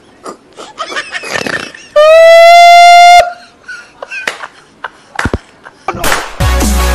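A man's quick, excited exclamations, broken about two seconds in by a loud, shrill, held note lasting just over a second. Near the end, electronic music starts.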